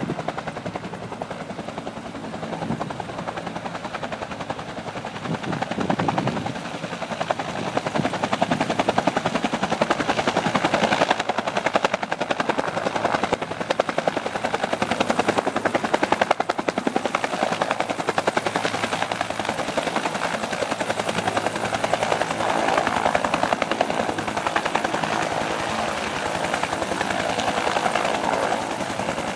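Helicopter rotor blades beating in a fast, steady chop throughout, growing louder from about six seconds in.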